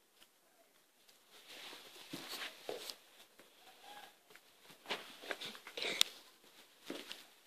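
Cocker spaniel puppy moving about on carpet and tile floor: a string of light, irregular clicks and scuffs, the sharpest about six seconds in.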